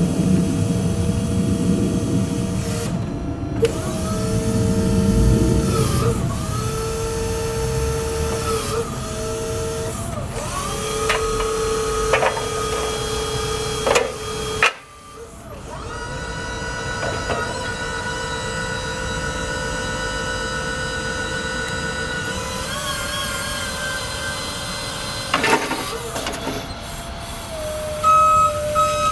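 Electric forklift's hydraulic pump motor whining as the forks and mast are worked, its pitch gliding up as it spins up and down as it stops, over and over. Rapid beeping starts near the end.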